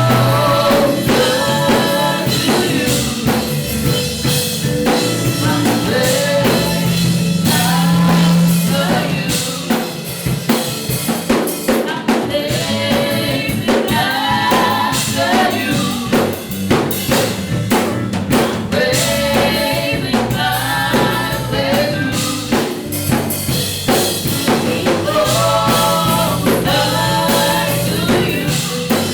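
Live contemporary gospel worship music: a band with drum kit and bass, and voices singing a worship song over it.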